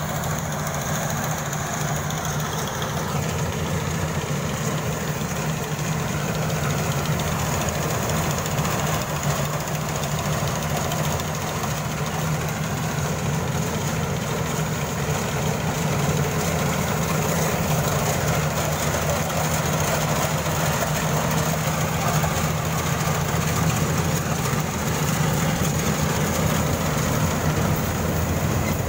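Iseki HC80 rice combine harvester running steadily at work, its engine and threshing machinery giving one continuous hum that grows slowly louder as the machine comes closer.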